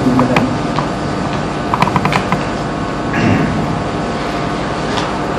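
A pause in speech filled with steady room hum, with a few light clicks and taps, a cluster of them about two seconds in, and a short soft rustle a little after three seconds.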